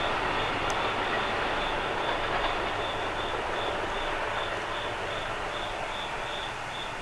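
New York City subway train running, a steady rumble of wheels on rail that slowly fades away.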